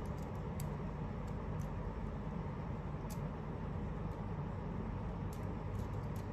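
Steady low background hum, with a few faint clicks from handling a small phone and its SIM card.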